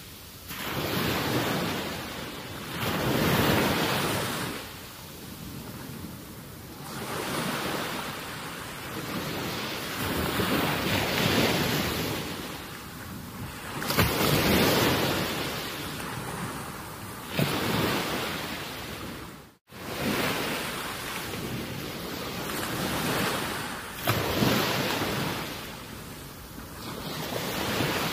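Wind buffeting the microphone over water lapping at the shore, a rushing noise that swells and fades every few seconds. The sound cuts out for a split second about two-thirds of the way through.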